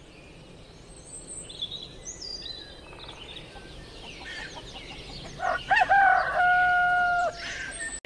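A rooster crowing once, a few short notes rising into a long held note of about a second that stops abruptly. Small birds chirp faintly before it.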